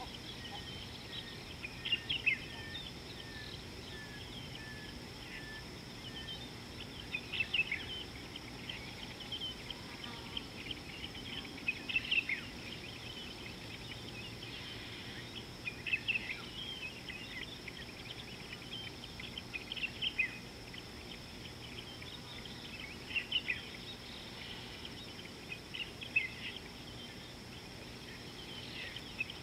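Wild birds calling in short chirping bursts every few seconds. In the first few seconds there is also a run of short, evenly spaced notes that step slightly downward. Under it all is a steady high hum, likely insects, and a constant low outdoor background noise.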